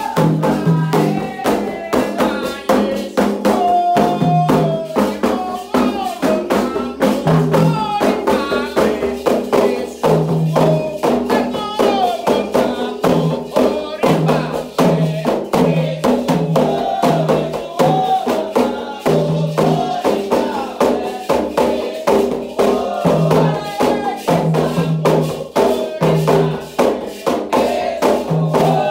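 Candomblé ritual music: atabaque hand drums beat a fast, steady rhythm with rattling percussion under a sung chant.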